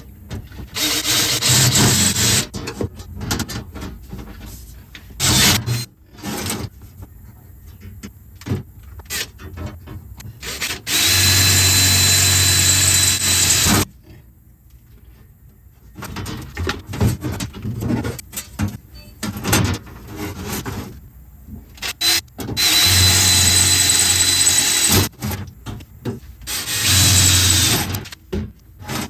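Power drill running in four separate bursts, the longest about three seconds, drilling rivet holes through 16-gauge galvanized steel sheet, with a thin high whine over the motor hum. Clatter and handling knocks between the bursts.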